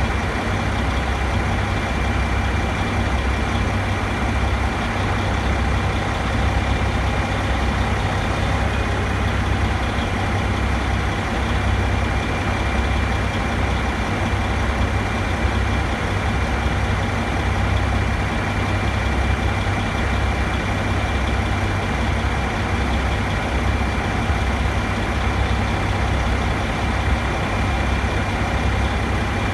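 Construction machinery's engine idling steadily: a continuous low rumble with a thin, steady high tone held over it.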